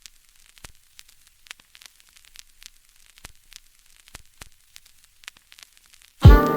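Faint, sparse crackles and pops, like the surface noise of a record, scattered at an uneven pace. Near the end, music with piano and keyboard starts abruptly and loudly.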